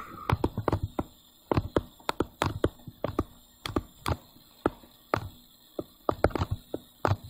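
Stylus tapping and clicking on a tablet computer's screen during handwriting: a run of sharp, irregular clicks, several a second, with brief gaps between strokes.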